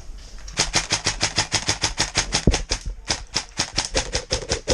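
Airsoft gun firing on full auto in long bursts, a rapid even rattle of about nine shots a second with a short break about three seconds in.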